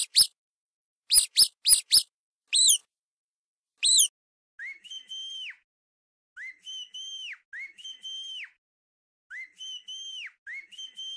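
A mouse squeaking: short, very high squeaks, several in quick succession. From about four and a half seconds in, a person whistling through the lips, short notes that slide up and hold, repeated in little phrases.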